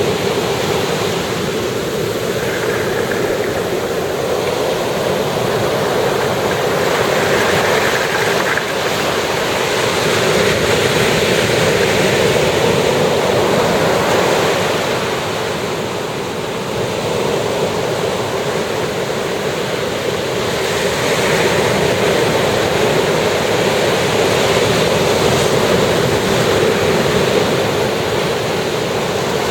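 Ocean surf breaking and washing ashore: a continuous rush that swells and eases slowly, dipping a little about halfway through.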